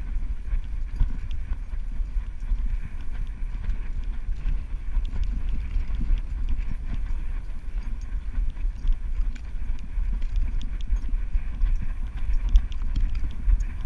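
A dog's footsteps as it runs over snow and dry grass, with small crunches and ticks, heard through a camera strapped to its back. A constant low rumble comes from the jostling camera mount.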